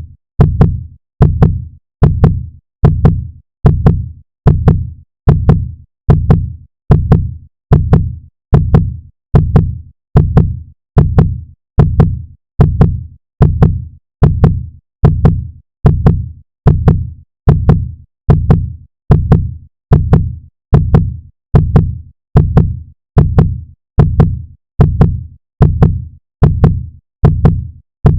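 Heartbeat sound effect: a steady, deep lub-dub beating at about seventy beats a minute.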